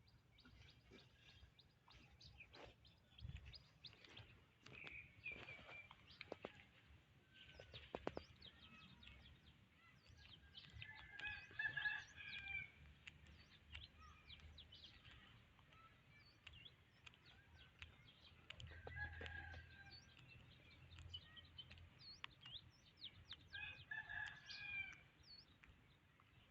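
Faint animal calls, about four of them, each a second or two long, with scattered light clicks and taps between them.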